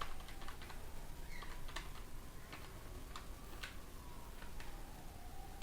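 Faint, irregularly spaced light clicks and ticks, over a thin faint whine that drifts lower near the end.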